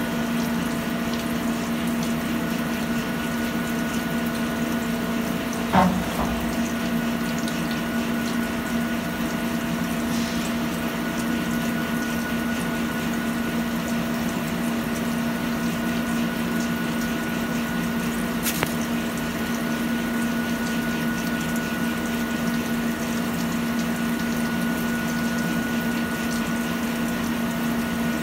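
CNC lathe turning a large spinning metal part under flood coolant: a steady hiss of spraying coolant over the constant hum of the spindle drive. A sharp knock about six seconds in, and a fainter click later on.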